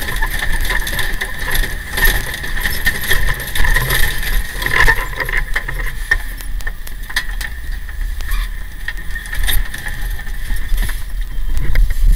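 Tiller ladder fire truck running, heard from the tillerman's position: a steady engine rumble with constant rattling and clattering, and a steady high whine through the first half.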